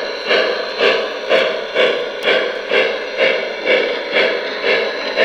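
Sound system of a Lionel Strasburg #89 2-6-0 O gauge steam locomotive playing a steady rhythmic steam chuff through its onboard speaker, about two beats a second.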